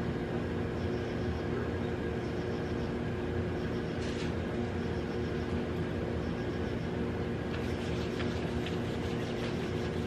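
Steady machine hum of room equipment, even and unchanging, with faint crunching of chewing near the end.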